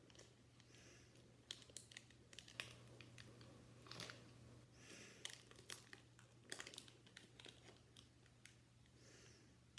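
Faint crinkling and crackling of foil Pokémon card booster pack wrappers and cards being handled, in irregular small clicks.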